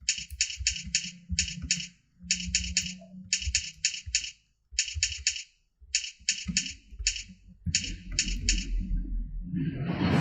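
Computer keyboard being typed fast, keystrokes clicking in quick runs of three to six with short pauses between runs, during a timed typing test. A short rush of noise comes near the end.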